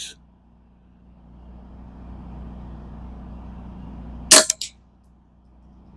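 A single sharp rifle shot about four seconds in: a Ruger 10/22 firing RWS subsonic .22 LR, followed by a short click.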